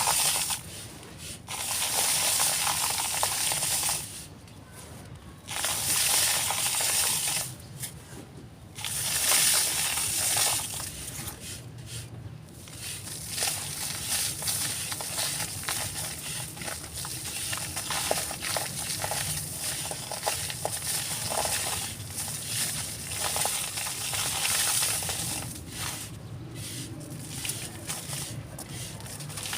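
Dry, crumbly texture chunks being crushed and crumbled by hand: a gritty crunching and crackling in bouts, with two short pauses in the first nine seconds, then a steadier run of crumbling.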